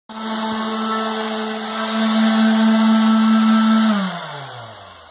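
Corded electric random orbital sander running steadily while sanding a ceiling overhead. About four seconds in it is switched off, and its hum falls in pitch and fades as the motor spins down.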